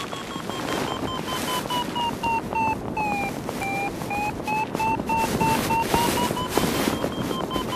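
Paragliding variometer sounding one unbroken tone that dips in pitch about three seconds in and slowly climbs back, over gusty wind noise on the microphone.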